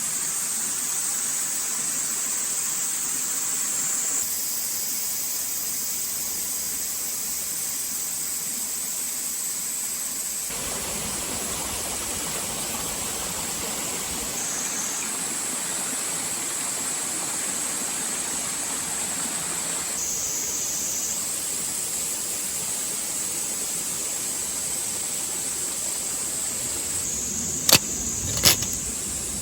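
Steady outdoor ambience: an even high-pitched hiss or buzz over a low noise haze, with two sharp clicks close together near the end.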